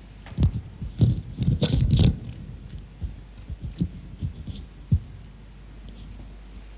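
Irregular dull thumps and knocks, with a denser cluster of sharper clattering about one to two seconds in.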